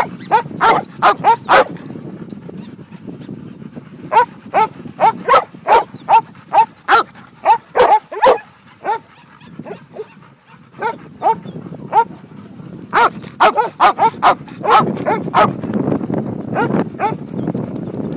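Dogs barking in quick runs of short, high barks, with a lull in the middle.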